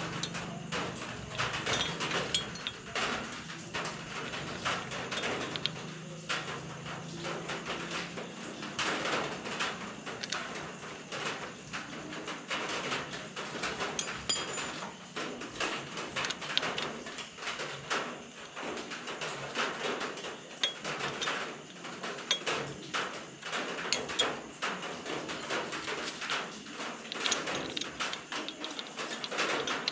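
Many light metal clicks and taps as a bolt-on metal heel guard is handled, positioned and screwed onto a motorcycle's frame with an Allen key. A low hum sits under the clicks for about the first eight seconds.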